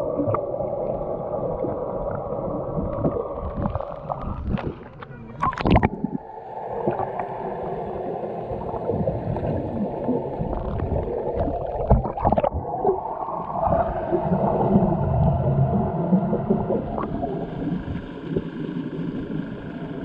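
Sea water heard through a submerged action camera: muffled bubbling and gurgling, with a short burst of sharper splashing about six seconds in.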